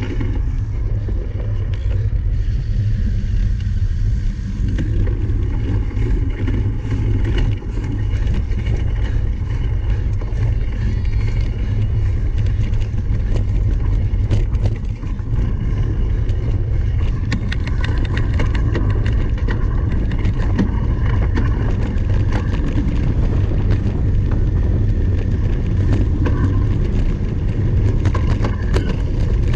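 Cyclocross bike being ridden hard, with steady heavy wind rumble on the microphone and frequent short rattles and clicks from the bike over rough ground.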